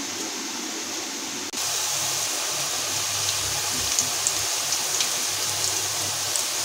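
Oil sizzling steadily in a steel kadai as strips of maida dough deep-fry over a low gas flame, with small scattered crackles. It gets louder about a second and a half in.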